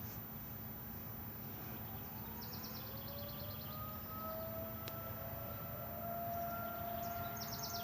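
Outdoor tornado warning siren starting up for its scheduled monthly test: about two seconds in its tone begins rising, and it settles into a steady wail by about six seconds.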